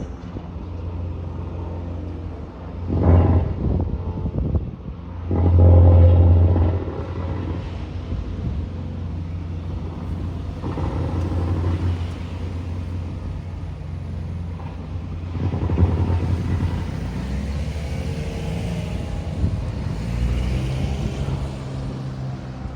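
Road traffic: motor vehicles passing close by one after another, each swelling up and fading over a low, steady engine rumble, loudest about three and six seconds in.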